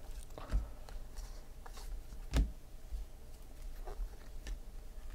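Baseball trading cards handled in a stack, each card slid off and tucked behind the others: scattered soft clicks and rustles, the sharpest snap about two and a half seconds in.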